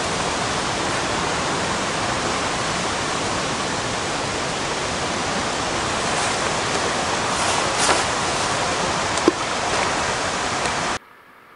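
Steady, even rushing noise with a few faint rustles, cutting off abruptly near the end.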